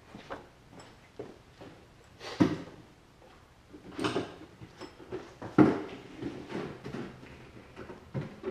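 Plastic motor-oil bottles being handled to add a quart of oil: irregular knocks and clunks with small clicks, a few louder ones spread through.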